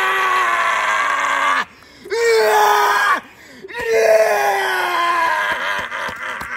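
A man's primal scream, pushed from the belly: a long, loud scream that breaks off about a second and a half in, then two more long screams, each sliding slowly down in pitch, the last one fading away.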